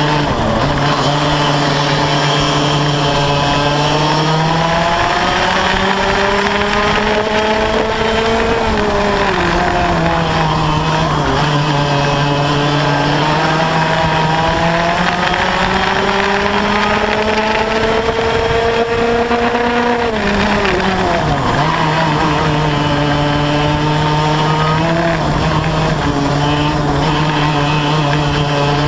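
Yamaha KT100 two-stroke kart engine with an SRY Y-pipe exhaust, heard at racing speed. Its note climbs steadily along the straights and falls sharply under braking for corners, three times: near the start, about nine seconds in and about twenty seconds in.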